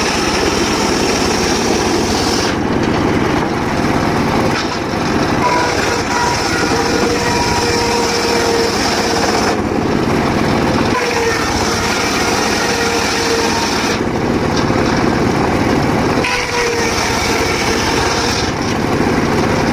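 Homemade engine-driven circular saw running continuously while sawing mahogany, with a whining tone that comes and goes as the blade works through the wood.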